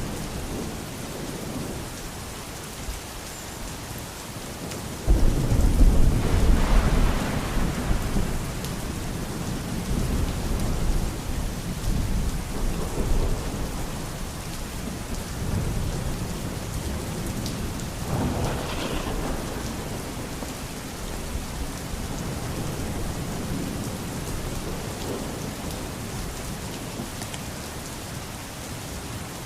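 Steady rain with thunder: a sudden loud peal about five seconds in that rumbles on for several seconds, and a softer rumble later.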